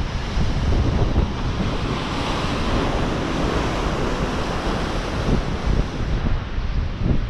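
Ocean surf breaking and washing against lava-rock cliffs just below, a wave surging louder about two seconds in, with wind buffeting the microphone.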